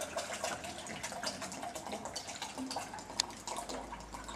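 Water poured from an upturned plastic bottle into a tall glass cone, splashing steadily as it fills the vessel of a liquid-pressure demonstration stand.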